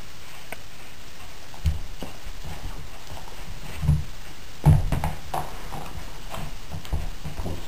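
Puppy pouncing and pawing at a plush toy on a rug: a few separate dull thumps of its paws landing, the busiest with some scuffling a little past halfway.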